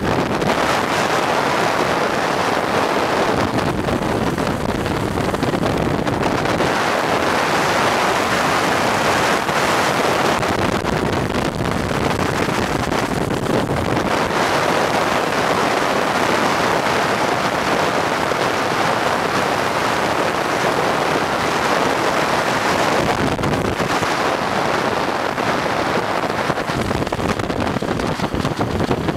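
Wind rushing over the microphone at downhill-skating speed, mixed with a steady road roar from wheels rolling on asphalt.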